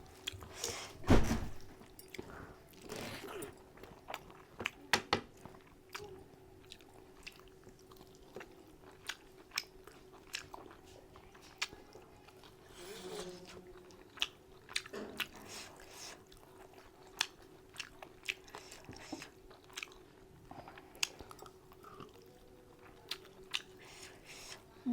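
Close-up eating sounds of spicy mutton curry: chewing, wet mouth clicks and smacks at an irregular pace, with a louder knock about a second in.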